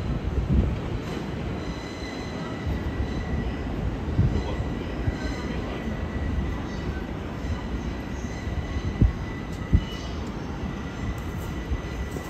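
E001-series TRAIN SUITE Shiki-shima train rolling past at low speed: a steady low rumble of the cars on the rails with a thin, steady high wheel squeal. Two sharp knocks come about nine and ten seconds in.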